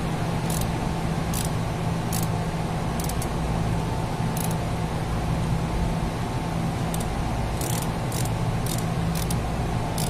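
Steady drone of running machinery with a low hum and a faint steady tone above it, broken by irregular short high-pitched clicks or hisses.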